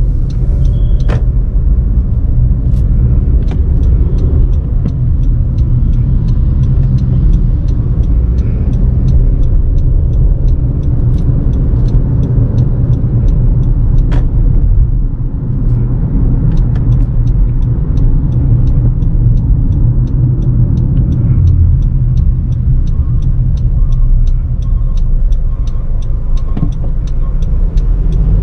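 Driving noise of a 2018 Honda CR-V Turbo heard inside the cabin: a steady low rumble of engine and tyres on the road, with an even run of faint ticks, about three a second, over it.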